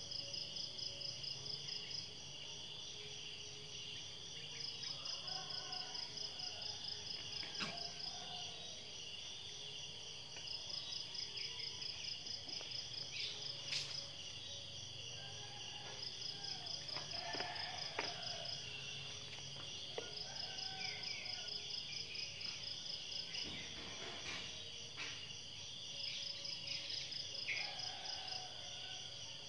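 A steady chorus of insects, with a second, higher insect call that pulses in bouts of two to three seconds about every five seconds. Faint bird chirps and a few soft clicks come and go.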